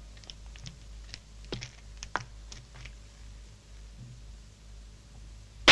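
Sparse, irregular light clicks and knocks, a few at a time, over a low steady hum.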